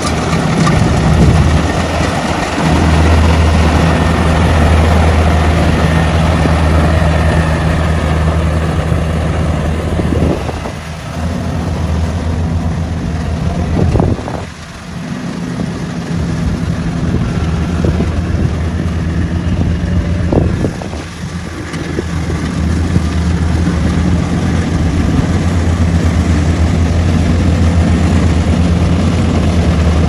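Diesel engine of a crawler rice combine harvester running steadily while harvesting, a constant low hum with mechanical clatter over it. The sound dips briefly a few times.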